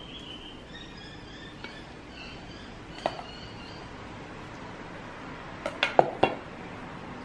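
Spoon or rice paddle knocking against a stainless steel mixing bowl while cooked rice is scooped out: one sharp clink about three seconds in, then a quick run of four or five clinks near the end.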